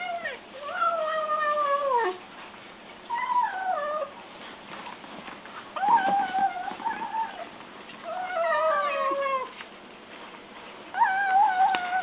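A cat meowing five times in long, drawn-out calls, several of them sliding down in pitch at the end.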